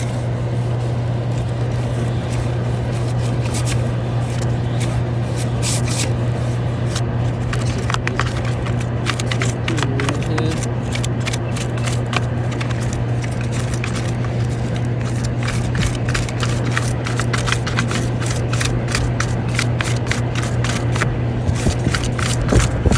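A cleaning tool scraping and clicking inside a short dryer vent duct, over a steady motor hum. The scraping is sparse at first and turns into rapid, irregular clicking from about five seconds in.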